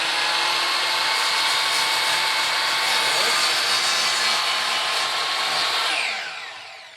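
Compound mitre saw's motor running at full speed as the blade is pushed down through timber edging. Near the end the trigger is released and the blade winds down with a falling whine. The cut stops short of going all the way through the piece.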